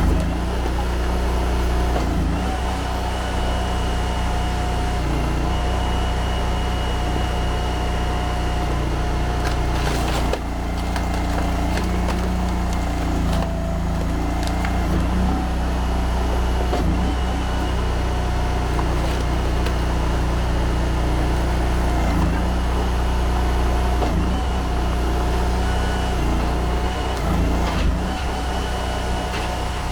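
Honda GX800 V-twin engine running a box wedge log splitter under load, with a steady hydraulic whine over it. A few sharp cracks and knocks come as oak logs split.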